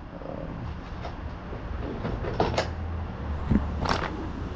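A few short knocks and clicks over a low, steady rumble.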